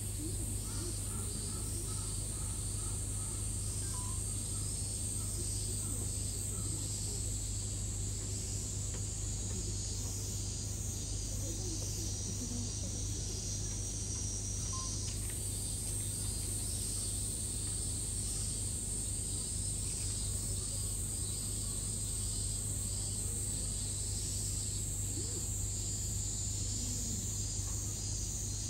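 Cicadas droning in a steady, high-pitched, pulsing chorus over a steady low hum, with faint distant voices.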